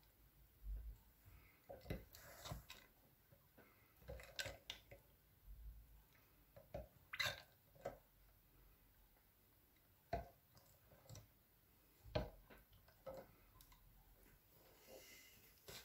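Clear glossy slime being stirred and pressed with a spoon: faint, irregular wet squelches and sticky clicks, a handful of them louder than the rest.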